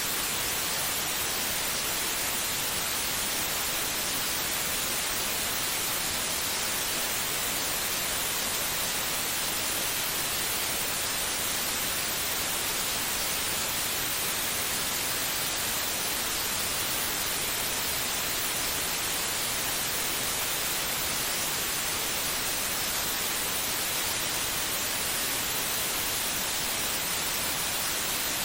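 Steady white noise: an even, unbroken hiss with no change in level.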